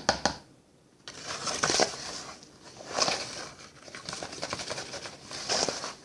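All-purpose flour being scooped with a measuring cup and poured into a bowl: soft scraping and rustling swells that start about a second in and come several times.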